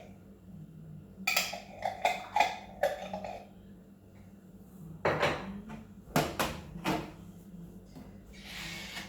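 Glass jars and bottles clinking and clattering as they are handled, in two clusters of knocks, some with a short glassy ring, and a softer rustle near the end.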